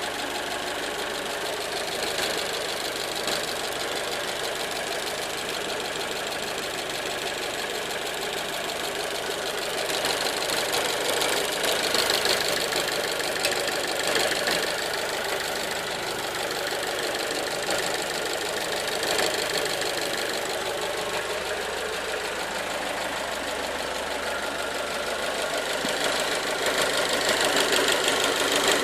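1.4 T-Jet turbocharged four-cylinder petrol engine (155 hp version) running steadily, growing a little louder around ten seconds in and again near the end.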